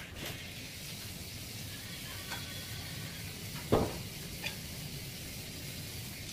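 Steady background hiss, with one short knock about four seconds in and a couple of faint clicks.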